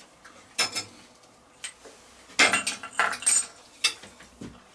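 Small glass hot-sauce bottles being handled and their caps twisted open: a few sharp clinks and clicks, the busiest stretch about two and a half to three and a half seconds in.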